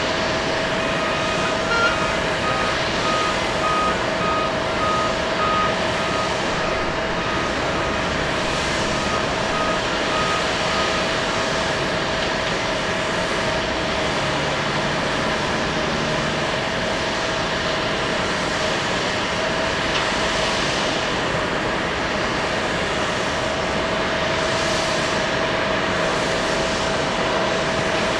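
Cessna 680 Citation Sovereign's twin turbofan engines on the takeoff roll and climb-out, heard at a distance as a steady jet roar with a constant tone through it. For roughly the first ten seconds a vehicle's reversing-alarm beeps repeat over it, about two to three a second.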